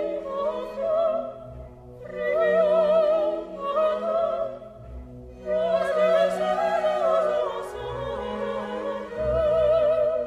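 Opera music: a singer holding long notes with strong vibrato in several phrases, over classical accompaniment.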